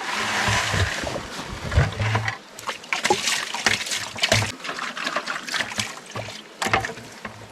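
Water sloshing and splashing, with a run of knocks and clatters from about two and a half seconds in: a small gold sluice box being rinsed out in a brook to collect its concentrates.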